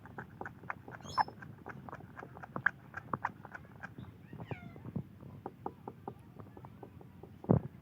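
Parrot pecking and biting at a guava: many quick, irregular clicks and taps, with two short chirping calls, about a second in and again past four seconds, and a louder knock near the end.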